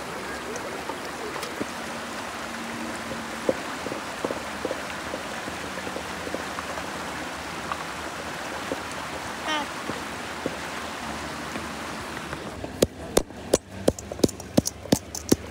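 Shallow river water flowing over stones, a steady rushing hiss. Near the end it gives way to sharp, rapid knocks, about three a second, of a stone pounding wild greens in a stainless steel bowl.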